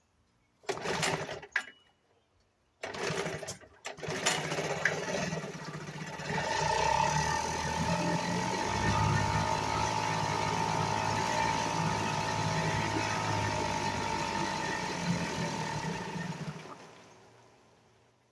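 1975 Sears Gamefisher two-stroke outboard motor being pull-started: two short bursts, then it catches about four seconds in. It runs steadily for about twelve seconds, then winds down and stops. Freshly repaired carburetor: it runs but still needs adjusting.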